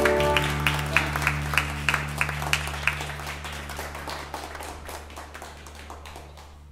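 Small audience clapping as the song's final keyboard chord ends, the separate claps thinning out and dying away over several seconds, over a steady low hum.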